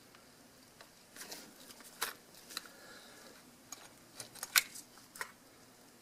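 Light plastic clicks and scrapes of a Canon EOS 6D's front body panel being worked free and lifted off the camera by hand. A scattered handful of small clicks, the sharpest about four and a half seconds in.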